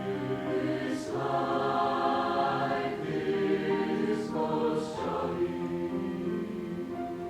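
Choir singing sustained chords in a slow choral song, with short sung 's'-like consonants about a second in and twice past the middle.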